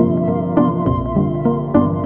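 Instrumental background music, its held notes changing about twice a second.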